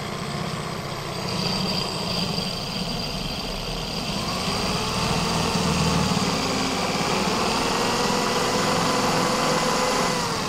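DeWalt corded drill running a half-inch diamond bit that grinds into the bottom of a ceramic pot, cutting a half-moon starting notch from the side. The motor whine wavers in pitch as the pressure changes and winds down near the end.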